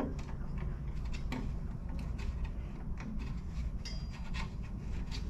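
A hand screwdriver backing small screws out of a Razor Crazy Cart XL, heard as a run of irregular small scrapes and clicks over a low steady hum.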